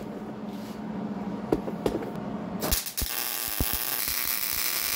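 Wire-feed welder arc tack-welding steel: a steady crackling sizzle that strikes up about two and a half seconds in and keeps going. Before it, a faint hum and a couple of light knocks.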